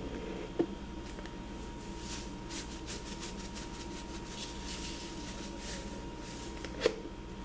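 Salt poured from a canister's spout onto raw chicken pieces in a plastic bowl: a run of faint, quick grainy patters in the middle, with a sharp click about half a second in and another near the end.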